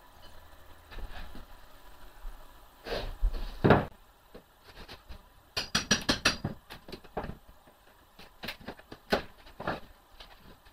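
Tools knocking on a wooden shipping crate as nails are worked out of its runners: two heavy thumps, then a quick run of sharp metallic taps, then scattered single knocks.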